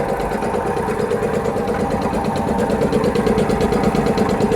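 Piston air compressor running steadily under load, its pump beating rapidly as it builds tank pressure toward its automatic cut-off.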